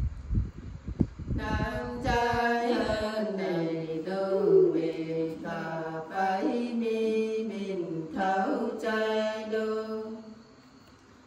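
Unaccompanied women's voices singing a Nùng folk song (hát Nùng) in long, slowly gliding held notes. A few low thumps sound in the first three seconds, and the singing breaks off for a breath pause near the end.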